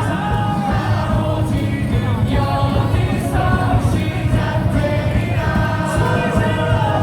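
Baseball stadium crowd singing a cheer song together in unison over loud music from the stadium speakers.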